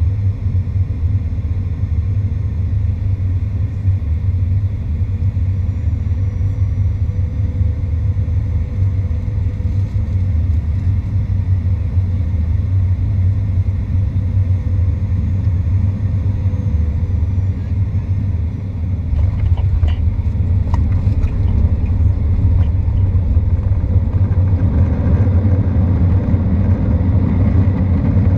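Cabin noise inside a Boeing 737-800 landing: a steady low rumble of its CFM56 engines and the airflow, broken about two-thirds of the way through by a few sharp knocks and rattles as the wheels touch down. After that the rumble grows louder and fuller as the jet rolls out on the runway.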